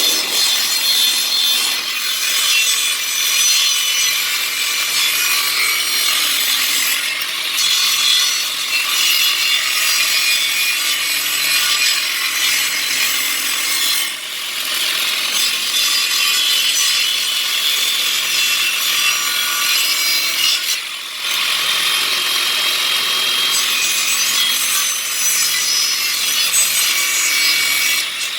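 A saw cutting a curve through a jati belanda (pallet wood) board: continuous rasping, with brief pauses about halfway through and again around three quarters of the way.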